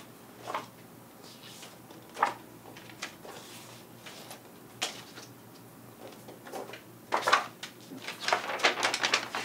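Sheets of paper being handled and leafed through: short, separate rustles a second or two apart, then a busier run of rustling and shuffling near the end.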